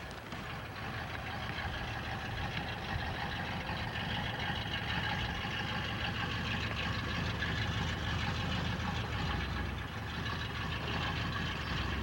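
Motor vehicle engine running steadily, a low rumble under a hiss of road or wind noise, rising a little in level during the first couple of seconds.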